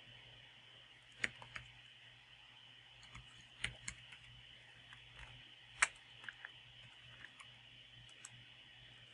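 Computer keyboard being typed on: faint, irregularly spaced keystroke clicks.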